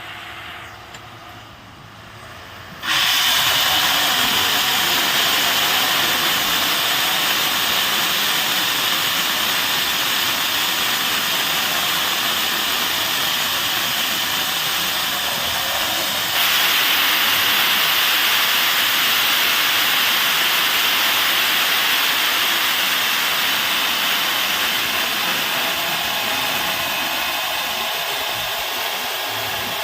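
A borewell gushing water, a loud steady rushing hiss that starts suddenly about three seconds in and gets a little louder about halfway through.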